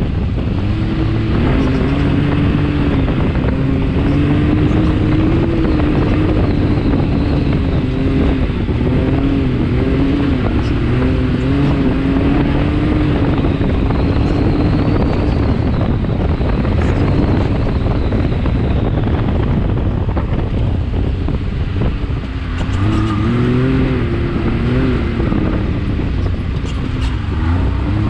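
Can-Am Maverick X3 XRC Turbo's turbocharged three-cylinder engine pulling hard under load, its pitch rising and falling with the throttle. It backs off briefly about three-quarters of the way through, then climbs again, over a heavy rush of wind.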